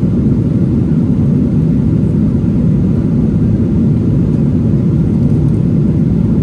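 Steady low cabin rumble inside a Boeing 777-300ER at cruise: airflow noise and the drone of its GE90-115B turbofans, unchanging throughout.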